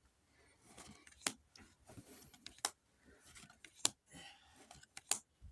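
Pokémon card packaging and trading cards being handled by hand: soft rustling of plastic and foil, with four or five sharp clicks and snaps a little over a second apart.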